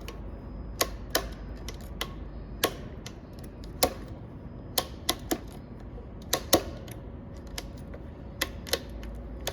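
Sharp, irregular plastic clicks and taps, about a dozen, as the switch slots are pushed into the gears of a six-position selector switch and snap into place.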